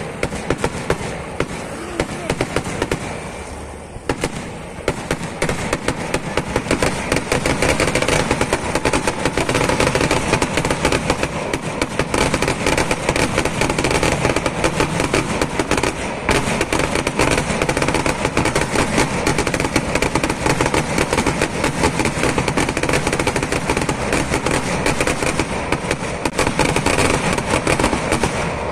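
Fireworks going off in a rapid, dense barrage of firecracker bangs, like machine-gun fire. It eases briefly about four seconds in, then builds to a continuous, unbroken crackle and rattle of explosions.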